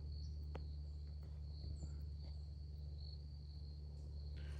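Insects trilling steadily on one high note, over a low steady rumble.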